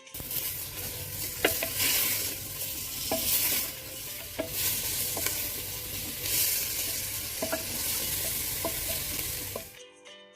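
Food sizzling in hot fat in a cooking pot while being stirred with a spoon, which clicks against the pot about ten times. The sizzle cuts off suddenly near the end.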